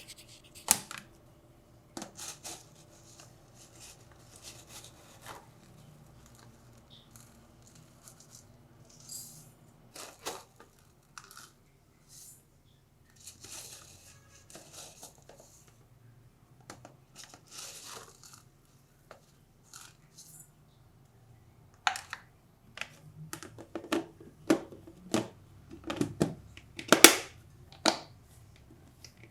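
Scattered handling sounds: light clicks and knocks with short spells of rustling and crinkling, as of packaging or utensils being handled. The knocks grow closer together and louder from a little past two-thirds of the way in.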